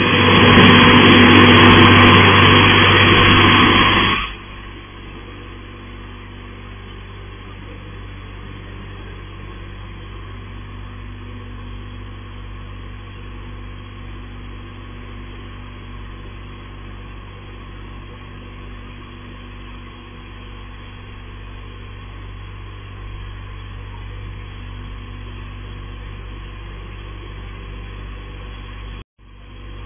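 Touchless automatic car wash gantry running over a car: a loud rush of noise for about the first four seconds, then a steady hum of the machinery with the hiss of water jets, broken by a short gap near the end.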